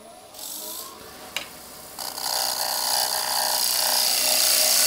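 Hand brushing wood shavings off a lathe tool rest, with a click about a second and a half in. Then, from about two seconds in, a bowl gouge cuts into the inside of a bowl spinning on a wood lathe, a steady scraping hiss of shavings being cut.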